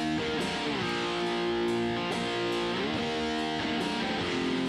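Electric guitar track playing strummed, sustained chords that change several times. It is played back through a Sonitus compressor set to emulate an LA-2A curve: fast 1.5 ms attack, 150 ms release, 14:1 ratio.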